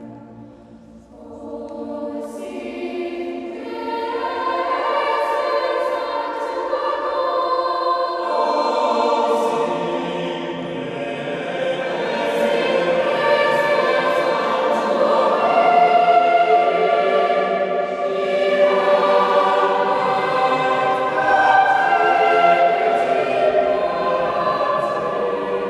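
Mixed choir of adults and children singing unaccompanied. After a brief pause near the start, the voices enter softly and swell into sustained chords.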